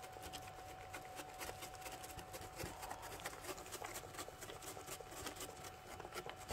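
Goat eating chopped alfalfa hay from a plastic feed pan: a steady run of small irregular crunches and rustles as it chews and noses through the feed.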